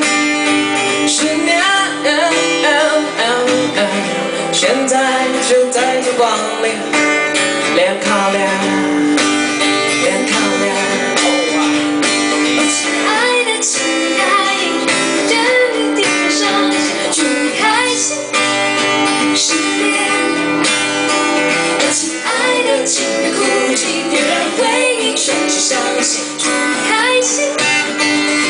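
Acoustic guitar strummed, accompanying a man and a woman singing a song.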